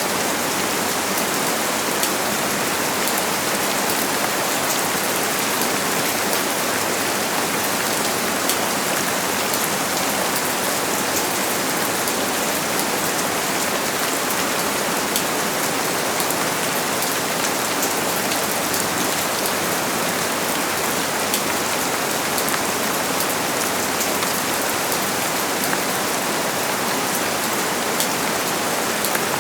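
Steady rain falling, a dense patter of drops striking a surface without let-up.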